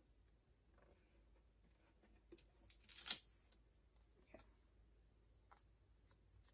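A paper sticker being peeled off a planner page: one short ripping rasp about three seconds in, with a few faint paper ticks and rustles around it.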